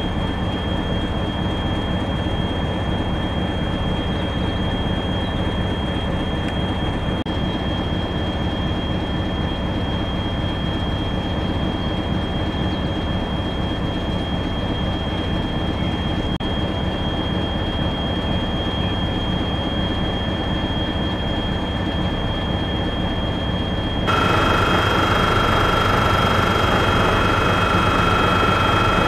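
Idling railway locomotives: a steady engine hum with a constant high whine over it. About 24 seconds in, the sound grows louder and a second, lower whine joins.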